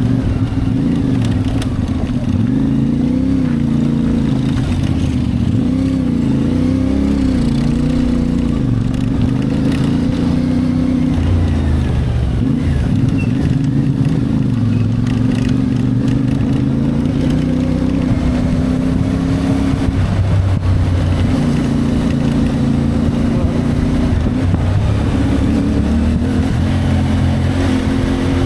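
CFMoto 450MT's parallel-twin engine running while riding, its pitch wavering up and down and dropping away briefly twice.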